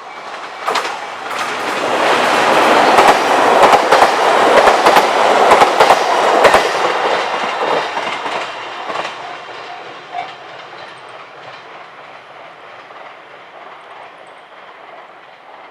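A Nippō Main Line train passing over a level crossing. Its wheels clack over the rail joints, growing loud within the first couple of seconds, with a rapid run of clacks at the loudest point. The sound then fades away over the last several seconds as the train recedes.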